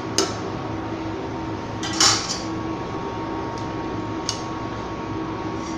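Metal spoon scraping and clinking against a stainless steel pot while stirring thick dal, with one louder clink about two seconds in and a few lighter taps. Under it runs a steady background hum.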